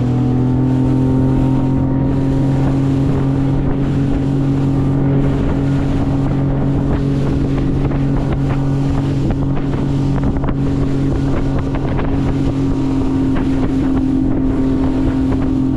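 Tiller-steered outboard motor on a Highfield Sport 390 inflatable boat running at a steady cruising speed, with an even hum throughout. Over it come wind buffeting the microphone and the splash and slap of water against the hull.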